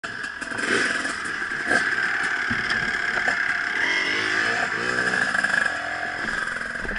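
Dirt bike engines running, with one revving up and back down about midway as the bikes pull away.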